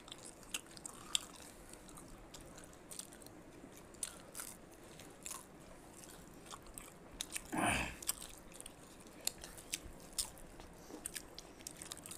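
Close-miked chewing and biting of food such as jalebi: irregular wet mouth clicks and soft crunches. One short, louder noisy sound comes a little past halfway.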